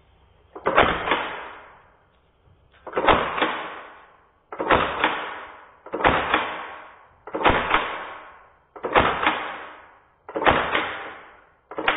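Hammer-fired, gas-powered 3D-printed airsoft replica of the FGC-9 firing semi-automatic, eight single shots about a second and a half apart. Each shot is a sharp report that trails off over about a second.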